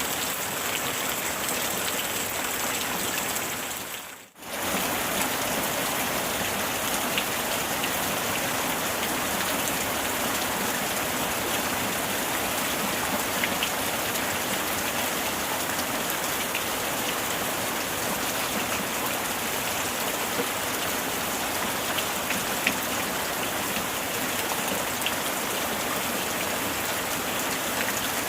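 Steady heavy rain, a dense hiss with scattered drop clicks. About four seconds in the sound briefly fades almost to nothing and returns.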